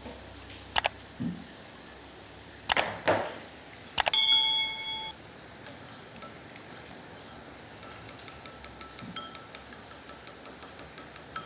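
A few sharp knocks, then a clink that rings clearly for about a second. Later comes a quick, even ticking, about three a second, that grows louder toward the end.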